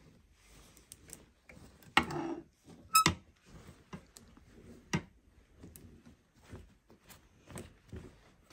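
Clothes hangers knocking and clicking as hanging clothes are pushed through, with a few sharper clacks about two, three and five seconds in.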